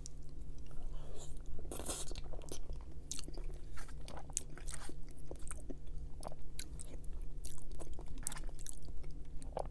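Close-miked chewing of lasagna: moist mouth sounds with many small, irregular clicks. A faint steady low hum runs underneath.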